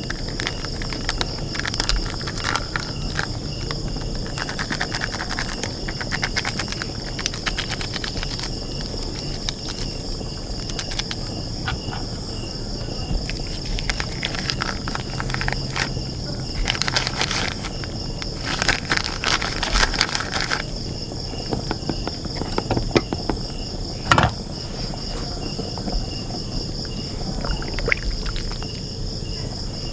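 Insects chirping in a steady high drone, with a second, lower chirp pulsing alongside. Over it come scattered clicks and rustling as kerisik is squeezed and scraped from a plastic sachet into the curry, and one sharp knock about 24 seconds in.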